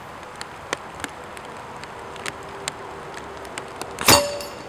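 Hatsan Flash .22 PCP air rifle firing once, about four seconds in: a single sharp crack, muffled by its integral moderator, with a brief ring after it.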